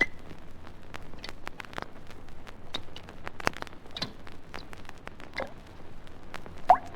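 Water dripping one drop at a time onto a surface, each drop a short plink, falling irregularly about once a second, with the loudest drop near the end: the water-torture drip sound effect. Vinyl surface crackle and clicks run underneath.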